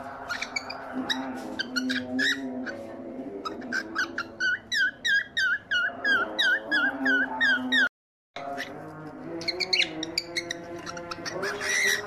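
Male cockatiel whistling a quick run of short repeated notes, about three or four a second, over background music, with scattered chirps before and after. The sound cuts out completely for about half a second near the middle.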